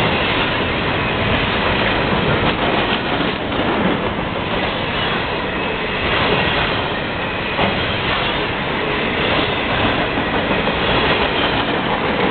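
Freight cars of a CSX trash train rolling past close by: a steady, loud rumble and clatter of steel wheels on the rails, with a few sharp knocks from the wheels over rail joints.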